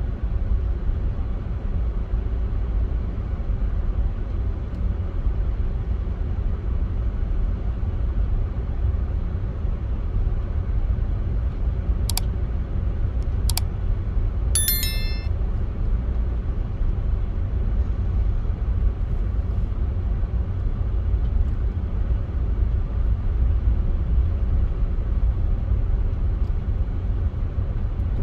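A steady low outdoor rumble, with two sharp clicks and a brief high-pitched chirp about halfway through.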